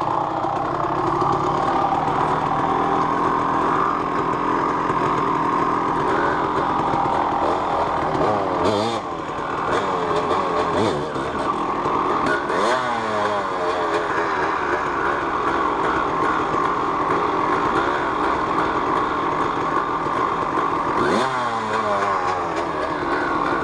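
Two-stroke 250 cc dirt bikes: a Yamaha YZ250 idling steadily close by, while a Honda CR250 revs sharply and drops back three times, about nine, twelve and twenty-one seconds in, as it is ridden over a fallen log.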